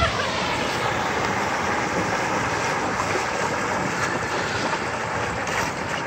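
Shallow mountain stream flowing over rocks: a steady rush of water.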